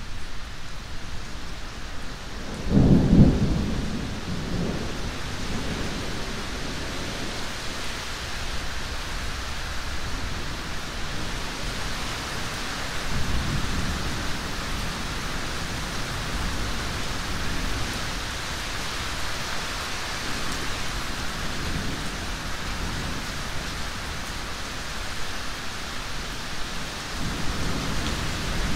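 Steady heavy rain during a thunderstorm: a loud, low thunderclap about three seconds in, then fainter rumbles of thunder later on.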